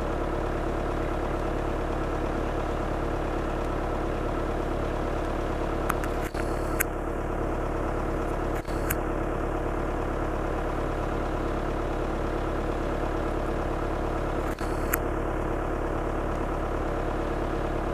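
Steady hum of an idling engine, unchanging throughout, with a few short clicks about six, nine and fifteen seconds in.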